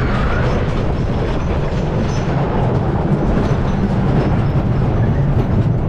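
Wooden scenic railway roller coaster train running along its track: a loud, steady low rumble with rapid clatter from the wheels on the wooden track.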